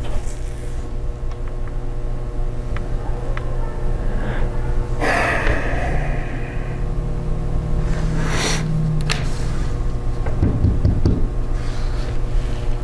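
A steady low hum with two breathy exhales, a longer one about five seconds in and a shorter one about eight seconds in, followed by a few soft low thuds.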